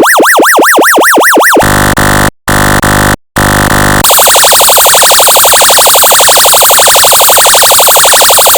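Electronic emergency siren tones from an audio function generator. First comes a fast yelp sweeping up and down about five times a second. At about a second and a half in it switches to a harsh, buzzing horn-like blast broken by two brief gaps. From about four seconds in there is a very rapid warbling siren tone.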